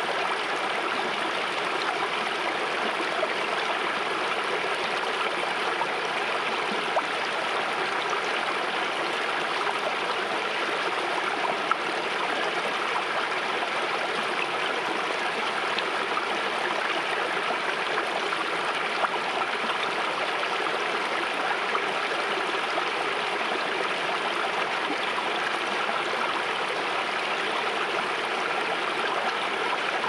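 Shallow stream water running fast over rock, a steady unbroken rushing flow with a few brief louder spots.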